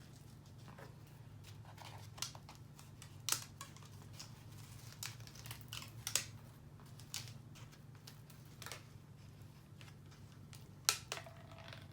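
Hands working at the wrapping around a shipped potted plant: scattered sharp clicks and short rustles of packaging being pulled and cut, over a steady low hum.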